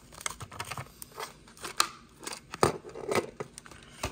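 Plastic blister packaging of a Hot Wheels car being pulled and snipped open by hand: an irregular run of sharp crackles and clicks, loudest about two and a half seconds in.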